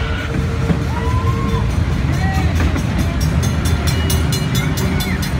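Park railroad train running along the track, heard from on board as a steady low rumble of wheels on rail. From about halfway through, a rapid high ringing builds at about four strikes a second, like a grade-crossing bell as the train nears a road crossing.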